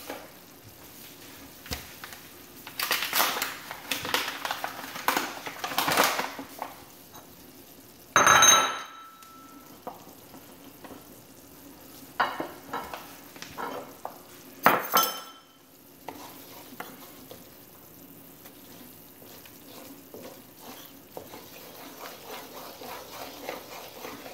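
Oil-and-flour roux sizzling quietly and steadily in a wok over low heat. Over it come louder bursts of noise a few seconds in and around twelve seconds, and two sharp ringing clinks of kitchenware, the loudest sounds, about eight and fifteen seconds in.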